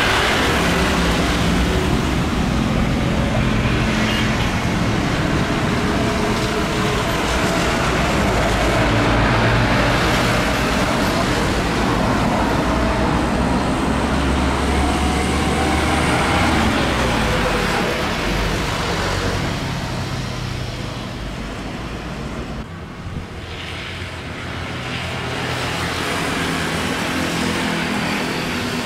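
Jet engines of an Airbus A330 widebody airliner at takeoff thrust as it climbs away: a loud, steady roar that fades over the second half. After a brief dip, jet noise builds again near the end.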